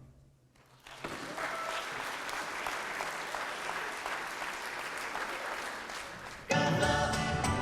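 Church congregation applauding for about five seconds after a moment of near silence, then music cuts in abruptly near the end.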